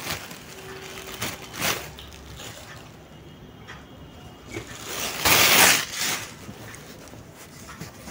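Steel ladle stirring okra and mutton curry in a pressure cooker: wet sloshing of the thick masala with short knocks and scrapes of the ladle against the pot, and a louder noisy scrape lasting about a second some five seconds in.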